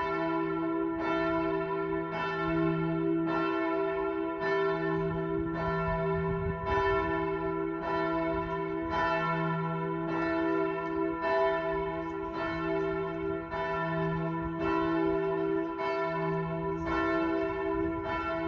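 Church bells ringing, a new stroke about once a second, each tone still ringing on as the next one sounds.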